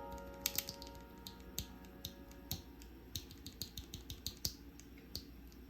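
Factory-lubed Akko CS Wine Red linear mechanical keyboard switches being pressed by fingers, giving a string of about twenty short, irregularly spaced clacks.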